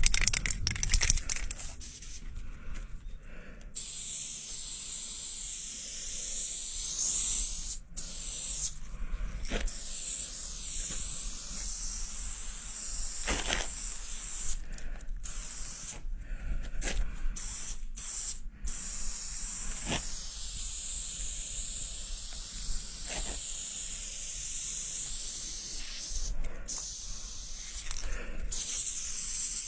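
Aerosol spray paint can hissing in long sprays, with several short pauses where the nozzle is released, as light-blue lines are sprayed onto a wall. The hiss begins a few seconds in and wavers in pitch as the can moves.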